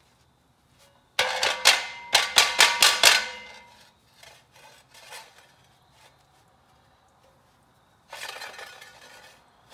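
Steel tool clanking against the flexplate of a Chevy small-block V8 hung on a hoist: about seven sharp, ringing metal strikes in quick succession, then a short scraping rattle near the end.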